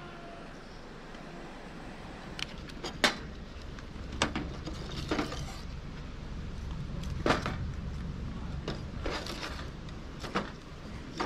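A long-nosed lighter clicking again and again, one sharp click at a time, as it is struck at a pile of dry kindling sticks and shavings in a fire stand that has not yet caught fire. A steady low rumble runs beneath.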